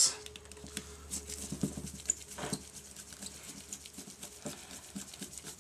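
Scattered small clicks and light scraping of a small screwdriver turning screws out of a solenoid valve, with the plastic-bodied valve being handled.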